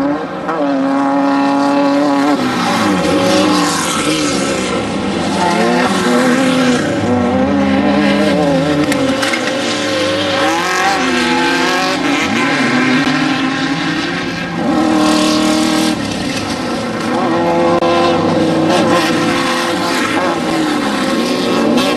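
Off-road desert race vehicles' engines running hard, revving up and down again and again through throttle changes and gear shifts.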